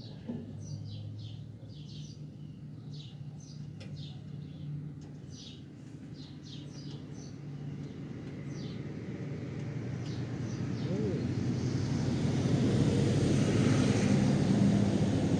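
Small birds chirping repeatedly over a low steady hum, then a vehicle's noise swells up over several seconds and stays loud near the end.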